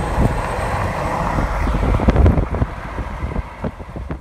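Car road noise and wind buffeting through an open window: a steady low rumble with scattered clicks and knocks that eases off and fades near the end.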